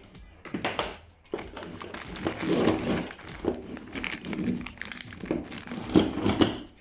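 Irregular rustling, clicks and knocks of hand guard parts and packaging being handled.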